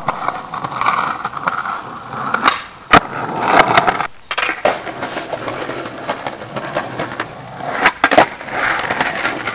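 Skateboard wheels rolling over rough street asphalt, with sharp clacks of the board against the pavement: one loud clack about three seconds in and a few more near the end.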